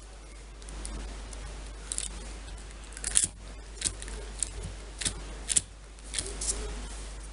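Plastic Play-Doh toy tools being handled: a run of about ten sharp clicks between about two and six and a half seconds in, over a low rustle.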